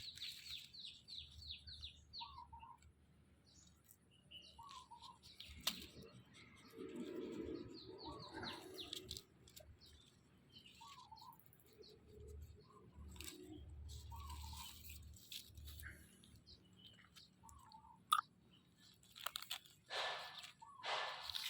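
Faint chirping and tweeting of small birds: a quick run of high chirps at the start, then short calls repeated every second or two.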